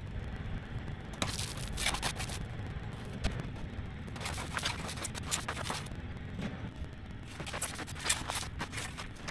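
A shovel scraping through crushed gravel on a trailer bed and the gravel being thrown onto the track, in a series of short scrapes a second or so apart, over a steady low rumble.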